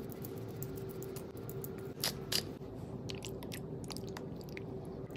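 Hard cheese being grated on a metal rasp grater: a run of short, crisp scratchy strokes, with two louder ones about two seconds in, over a steady faint hum.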